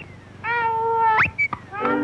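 Cartoon sound effect: a held, pitched note lasting under a second that swoops sharply upward, followed by music starting near the end.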